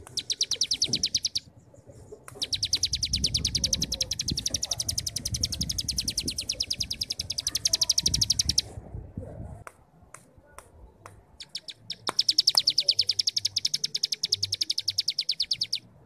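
Cigun songbird singing its 'ngebrem' song, a rapid, high, rattling trill of evenly spaced pulses, the kind of song used to train young cigun. It comes in three bouts: a short one at the start, a long one of about six seconds, and after a pause of a few seconds a last bout of about four seconds.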